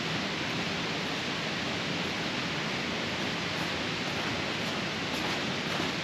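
Steady rush of running water from a nearby waterfall. Toward the end come a few faint crunching footsteps in snow as the hiker in crampons walks past close by.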